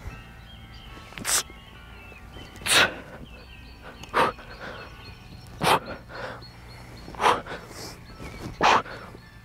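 Sharp, forceful breaths of a man doing chest dips, one hard exhale with each rep: six of them about every one and a half seconds, several followed by a softer breath in.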